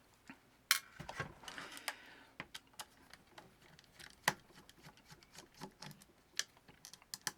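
Irregular small clicks and taps as a screwdriver works the outer screws out of a plastic FrSky X-lite Pro radio transmitter case, with a short scraping sound between the first and second seconds.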